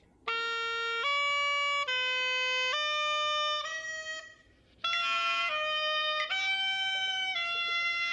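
Clarinet playing a slow melody of held notes, stepping from one pitch to the next, in two phrases with a brief break a little past halfway; the second phrase starts with a breathy, airy attack.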